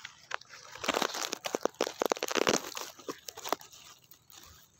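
Crackling, crunching rustle close to the microphone, in dense clusters of sharp clicks, loudest from about one to three and a half seconds in.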